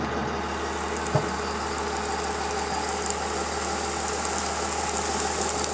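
1996 Dodge Ram 2500's 5.9-litre Cummins turbo-diesel idling steadily, with one short thump about a second in.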